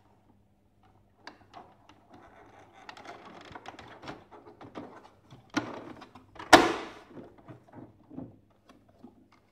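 Plastic housing parts of a Saeco Incanto HD8917 coffee machine being handled and fitted back on, with scraping and small clicks. There is a sharp knock, then a loud clunk about six and a half seconds in.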